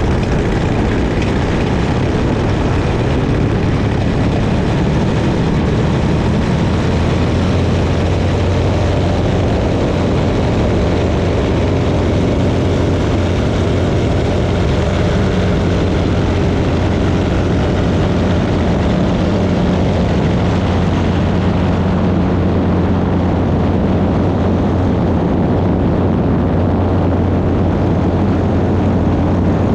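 Small propeller airplane's engine and propeller running at takeoff power, a loud, steady drone.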